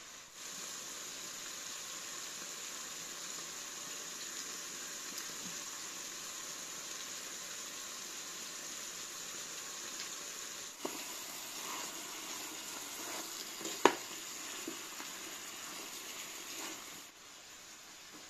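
Chicken pieces sizzling in hot oil in a pot: a steady hiss that cuts off suddenly near the end. A few light clicks and one sharp knock, the loudest sound, come in the middle stretch.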